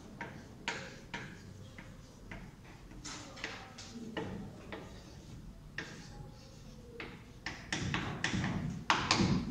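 Chalk writing on a blackboard: a string of short scratches and taps as letters are written out, growing louder and quicker near the end.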